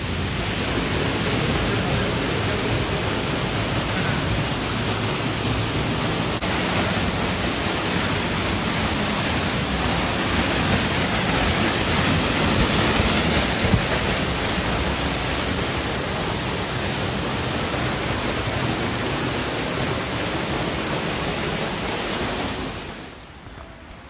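Hedge Creek Falls pouring into its rocky plunge pool close by: a loud, steady rush of falling and splashing water. It drops away sharply about a second before the end.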